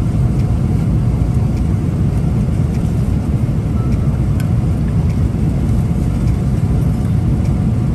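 Steady low rumble of a jet airliner cabin in flight, with a few faint clicks.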